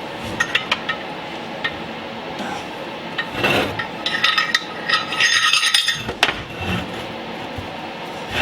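Steel parts clinking, knocking and scraping against each other as heavy metal pieces are handled and shifted. A few sharp ringing knocks early on give way to a busier run of clanks and scrapes in the middle.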